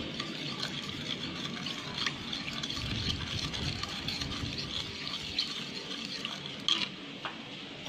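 Metal utensil stirring custard powder into water in a ceramic bowl, dissolving it: a steady wet swishing with a few light clicks against the bowl.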